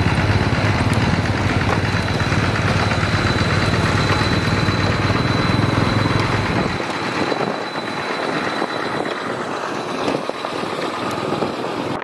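Caterpillar tracked excavator's diesel engine running close by with a low rumble, which drops away about seven seconds in. A lighter rushing noise and a steady high whine are left.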